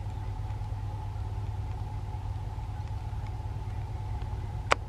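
Diesel-electric freight locomotives hauling a loaded iron-ore train at speed, heard as a steady low engine rumble with a steady hum above it. A single sharp click sounds near the end.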